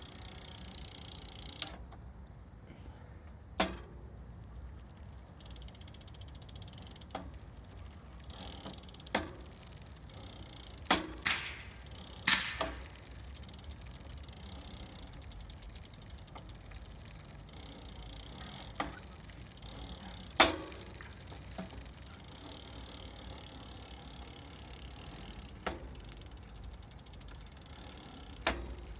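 Bicycle rear wheel turning in stretches, its freehub ratchet buzzing, broken by about ten sharp single knocks from the rear cassette. The knocks are the fault being shown.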